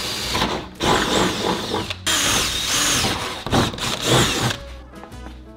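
Cordless drill running in about four bursts, its motor whine rising and falling as the trigger is squeezed and let go, with a few lighter clicks near the end.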